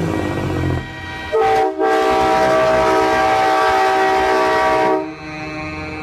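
Truck-mounted train-style air horn sounding one long chord-like blast. It starts about a second and a half in, breaks briefly just after it starts, and cuts off sharply near the end. A low engine rumble comes before the blast.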